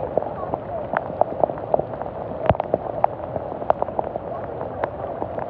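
Heavy rain falling on floodwater: a steady hiss of drops on the water's surface, with many sharp, irregular drop hits close by.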